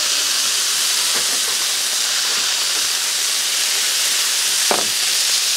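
Thin-sliced ribeye steak sizzling steadily on a hot Blackstone flat-top griddle.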